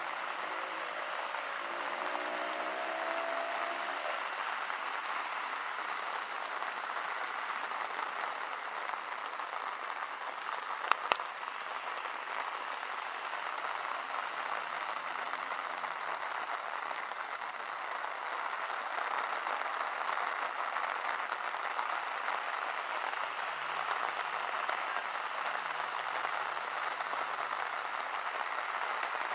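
Steady hiss of heavy rain falling. Two sharp clicks in quick succession about eleven seconds in.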